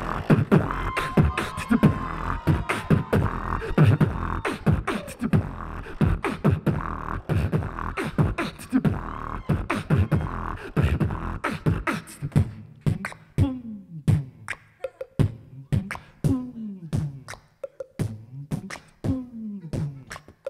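Two beatboxers performing a beat into handheld microphones: punchy kick-drum thumps and snare-like clicks packed closely together. About halfway through the beat thins out to sparser deep kicks that drop in pitch.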